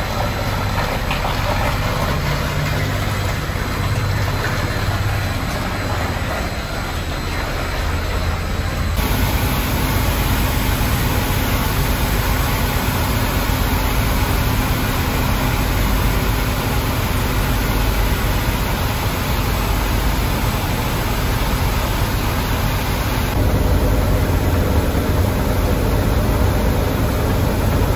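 Steady running noise of a mobile river-desludging plant's machinery: water spilling over the clarifier weirs, the belt filter press and the sludge-cake conveyor. The sound changes abruptly twice, and a steady hum runs through the middle part.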